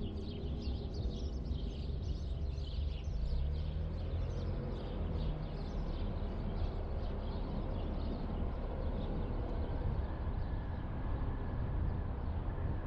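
Car driving slowly with a steady low rumble of tyres and engine, and many short bird chirps over it through the first two-thirds.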